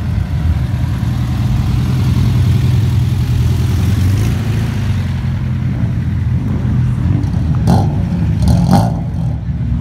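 Classic VW Beetle's air-cooled flat-four engine running with a low, steady hum as the car rolls slowly past and moves off.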